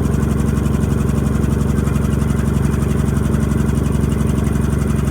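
Puma 20 HP piston air compressor running steadily, its pump giving a rapid, even pulsing.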